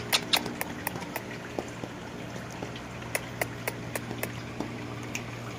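Irregular light clicks and taps from an Indian ringneck parakeet moving as it dances, denser in the first second, over a low steady hum.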